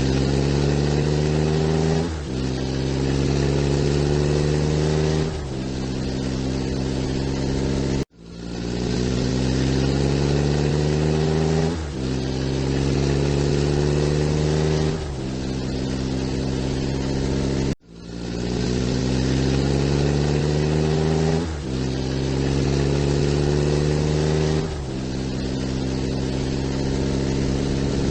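Motor vehicle engine accelerating through the gears. The pitch climbs, then drops at each shift, about every three seconds. The same run plays three times, each restart cut off abruptly at about 8 s and 18 s, which suggests a looped engine recording.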